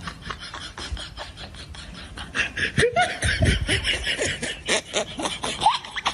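People laughing, growing louder about two seconds in.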